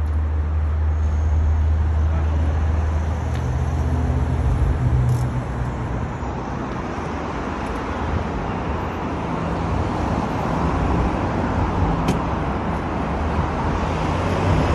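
Road traffic noise with a low engine rumble, strongest in the first few seconds and then settling into a steady wash of passing traffic.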